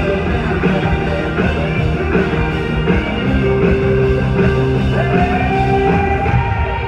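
Live rock band playing loudly, with electric guitar lead over bass and drums; a held guitar note slides up about five seconds in.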